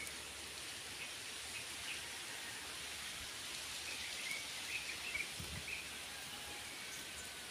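Outdoor ambience among sunny trees: a steady high hiss with a few short bird chirps in the middle and a soft low thud a little after five seconds.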